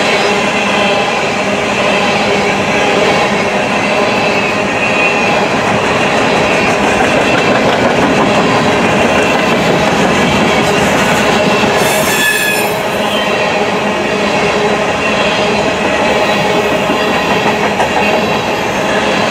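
Freight train's coal hopper cars rolling past close by: steady noise of steel wheels on rail, with several steady ringing squeal tones from the wheels and a brief high screech about twelve seconds in.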